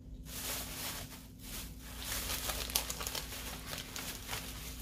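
Plastic crinkling and rustling as shopping items are handled, an irregular run of small crackles.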